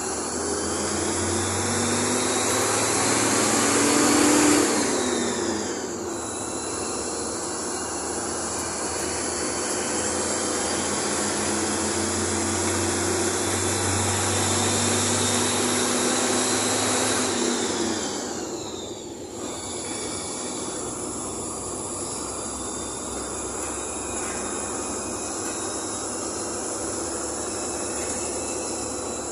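Bus engine and cabin noise while riding. The engine builds up, drops back about five seconds in, builds again, and eases off near eighteen seconds before running steadily.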